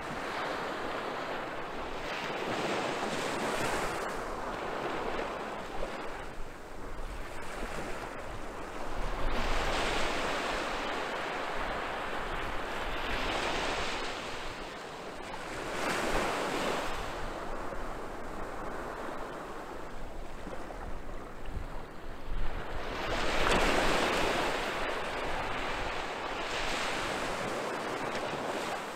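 Small waves breaking and washing up a sandy beach, swelling into a louder surge every few seconds. Wind buffets the microphone now and then.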